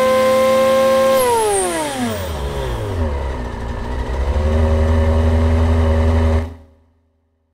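Supercharged Mazda MX-6 engine heard through its front-mounted open intake filter: held at high revs, then released so the pitch falls away over about two seconds and settles to a steady idle. The sound cuts off suddenly near the end.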